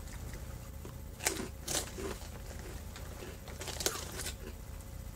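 Crinkling of a plastic Cheetos snack bag being handled, in several short bursts, over a low steady hum.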